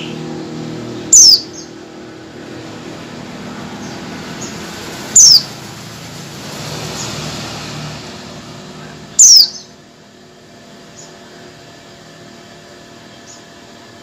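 Female white-eye (pleci) calling for a male: three loud, high, down-slurred calls about four seconds apart, then a few faint short chirps. A low steady rumble of background noise lies under the first ten seconds and drops away after the third call.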